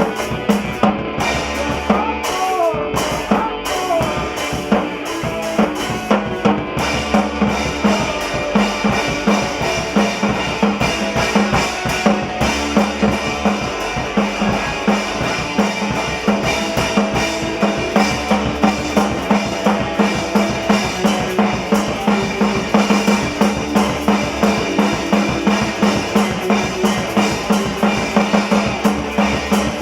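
A band playing live in a studio, the drum kit driving a steady fast beat of kick, snare and rimshots under the other instruments.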